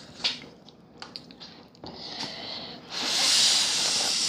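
A few faint clicks of utensils or mouth, then about three seconds in a loud, steady airy hiss from a person's mouth over a bowl of hot ramen, as when slurping in noodles or blowing on them.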